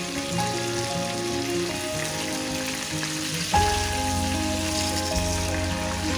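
Chicken breast sizzling in a frying pan as a steady hiss, under background music whose bass line comes in about halfway through.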